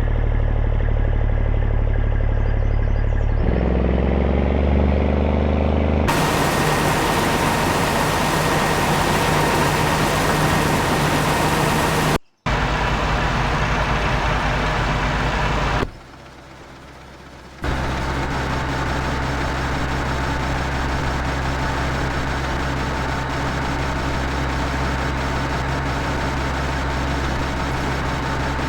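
An engine running steadily, shifting pitch slightly a few seconds in, then running harsher and noisier with a thin steady whine. The sound cuts out abruptly twice midway.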